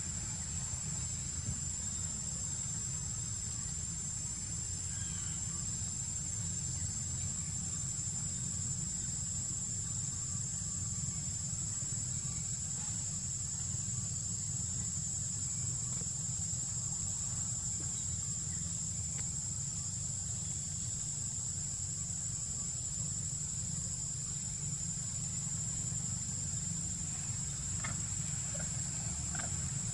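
Steady, high-pitched chorus of insects with a constant low rumble underneath. A few faint clicks come near the end.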